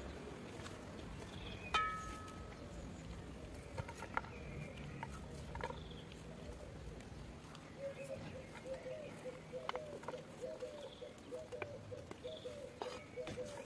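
Light clicks and taps of sliced onion rings and a plate being handled over an aluminium cooking pot, with one sharp ringing metal clink about two seconds in. From about eight seconds an animal calls in the background with a fast, repeated pulsing sound.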